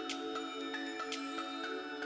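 Background music: soft sustained keyboard chords with a light, regular percussion tick.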